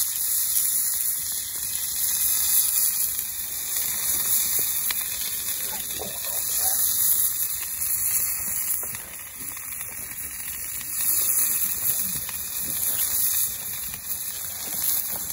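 Thick marbled steak sizzling on a hot iron griddle plate over a wood fire: a steady, rain-like hiss.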